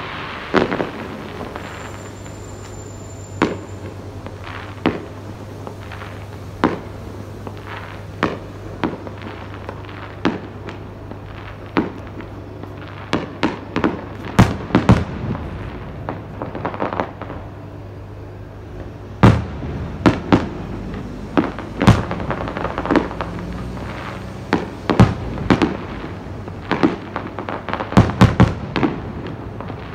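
Fireworks: aerial shells bursting in sharp bangs, a couple of seconds apart at first, then coming thick and fast in clusters through the second half. A steady low hum runs underneath and stops about two-thirds of the way through.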